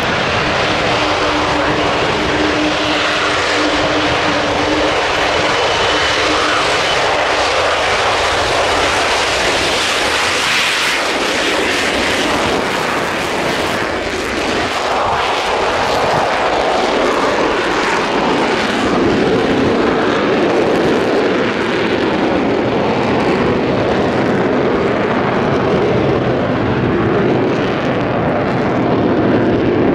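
An Avro Vulcan bomber's four Rolls-Royce Olympus turbojets at takeoff power: a loud, steady jet noise through the takeoff roll and climb-out, with a steady tone underneath for the first seven seconds or so.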